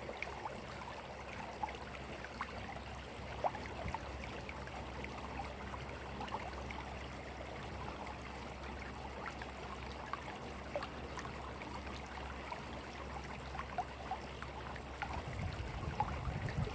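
Water trickling steadily, with many small splashes and drips through it. A low rumble comes in near the end.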